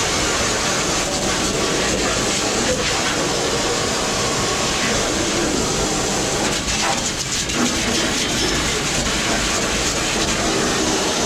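Steady loud rushing mechanical noise that stays even throughout, with a voice faintly underneath.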